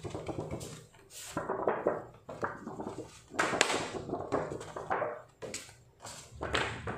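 Stiff sheets of very thick drawing paper being flipped and waved by hand, giving a run of irregular flapping swishes.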